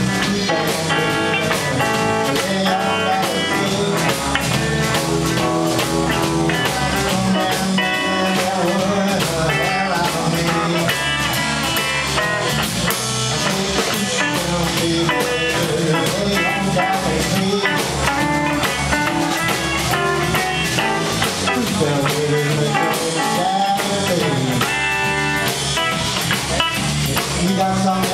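Live blues band playing: Telecaster-style electric guitar over bass guitar and a drum kit.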